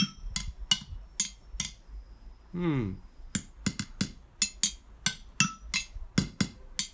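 A long screwdriver tapped in a quick, playful rhythm on the bare metal parts of a stripped-down moped engine, each tap a bright clink with a short metallic ring, played as a bit of music. There is a pause near the middle with a short hummed note.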